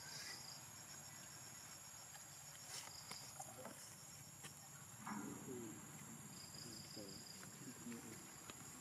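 Faint outdoor insect chorus: a steady high chirring with a pulsing cricket-like trill. About five seconds in, and again near the end, there are a few short, low vocal sounds.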